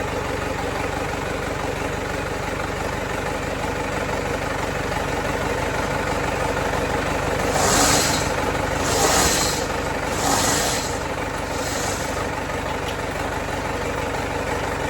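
Diesel engine of a Case 770 tractor idling steadily on its first run after an engine rebuild. Midway through, four short hissing rushes come about a second and a half apart over the engine.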